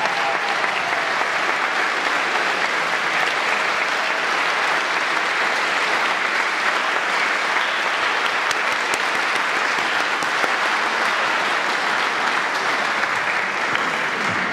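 Audience applauding steadily at the end of a wind band's piece, dying away at the very end.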